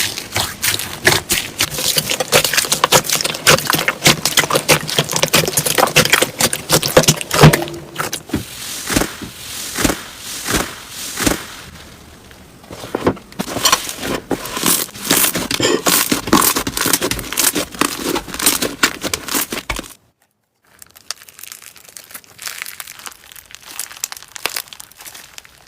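Slime being squeezed and worked by hand, a dense run of sticky crackles and pops. About twenty seconds in it cuts off abruptly, then resumes more quietly.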